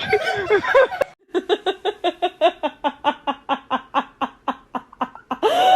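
Someone laughing in a long, even run of quick 'ha' pulses, about six a second, lasting several seconds. A brief voice comes just before the run, and a louder, rising cry comes near the end.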